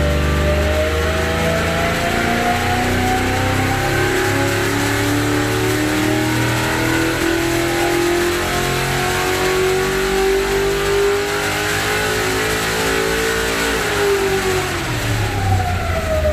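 1969 Corvette racing V8 on a dyno making a pull under load: revs climb steadily for about fourteen seconds, then fall away quickly near the end as it comes off the throttle.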